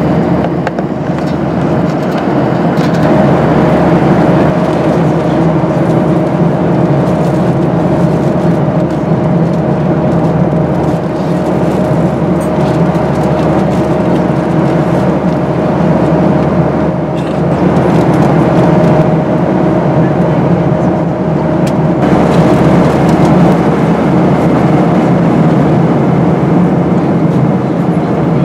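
Steady in-flight cabin noise of a Boeing 737-800: the CFM56-7B turbofans and the airflow over the fuselage make an even roar, with a faint steady hum that drops out briefly a little past the middle.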